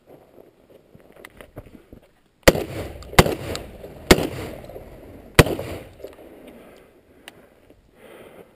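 A shotgun fires four times over about three seconds, each sharp report followed by an echo that dies away. A few faint clicks and scuffs come before the first shot.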